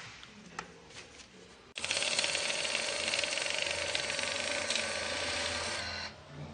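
Mini handheld money counter's motor running a stack of banknotes through, a dense whirring rattle that starts abruptly about two seconds in and stops about four seconds later. Before it, a few light clicks of handling.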